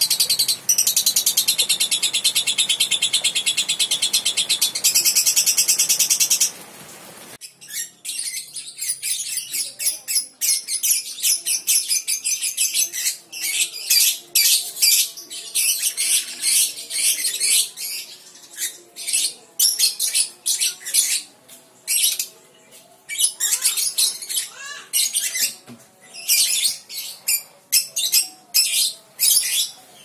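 Balibu lovebird singing: a loud, very fast unbroken high trill (the long 'ngekek') for about the first six seconds, then after a short break a stream of rapid, sharp, irregular chirps and chatter.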